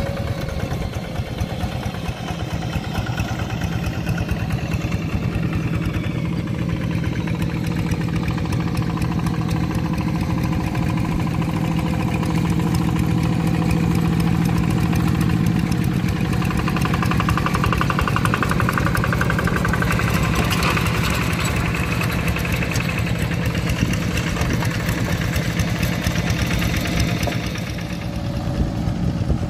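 Two-wheel hand tractor's single-cylinder diesel engine running steadily under load while ploughing a flooded rice paddy: a rapid, even chugging. The engine note shifts a little about halfway through.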